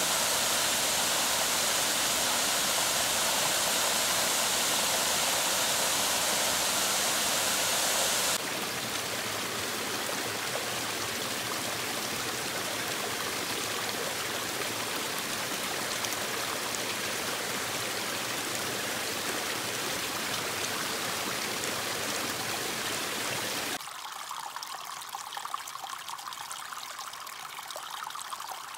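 Running water in three cut scenes. First a small waterfall splashing steadily, the loudest part. About eight seconds in it changes abruptly to a shallow mountain stream running over mossy rocks. Near the end it changes to a fainter trickle of water seeping and dripping down a mossy bank.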